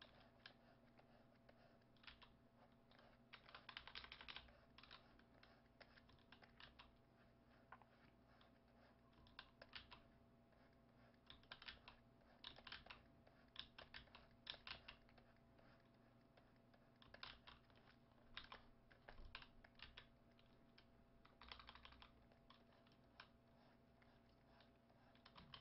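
Faint, irregular clicking of computer keyboard keys, coming in short clusters, over a faint steady hum.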